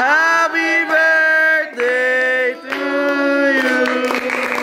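A group of voices singing the close of a birthday song, in three long held notes with brief breaks between them.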